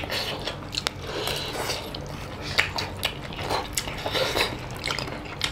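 Eating sounds: chewing, with many small clicks and crackles as fingers tear a curried whole chicken and work through rice.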